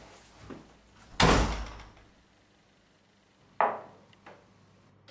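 A back door slamming shut about a second in, followed by another sharp knock about two and a half seconds later.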